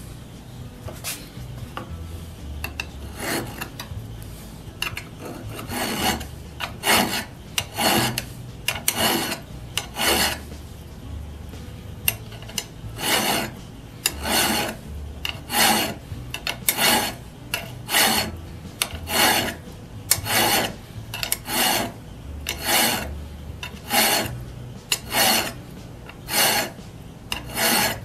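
Flat metal file scraping across the steel cutting edge of an auger bit, sharpening it by hand. Light, short strokes at first, then firm strokes about one a second from about six seconds in, with a brief pause near the middle.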